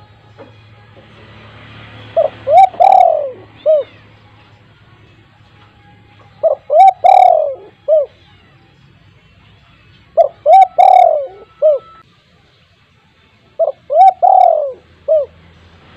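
Spotted dove cooing: four phrases about four seconds apart, each a couple of quick coos, a longer drawn-out falling coo and a short closing note.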